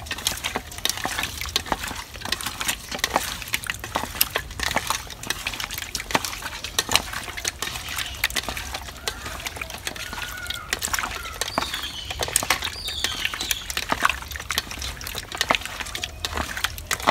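Hands rubbing salted tilapia pieces in a stainless-steel bowl, cleaning them before rinsing. The wet pieces squelch and click irregularly against the metal.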